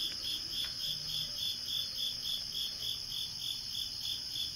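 Crickets chirping: a steady high trill with a second, slightly lower chirp pulsing evenly about three to four times a second.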